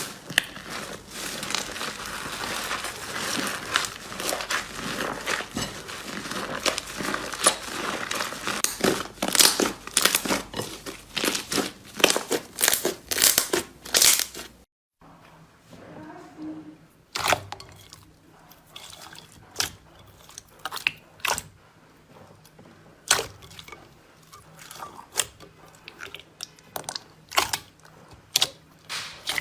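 Slime being squeezed and worked by hand: dense crackling and crunching for the first half, then, after a sudden cut, sparser sharp pops and clicks over a faint low hum.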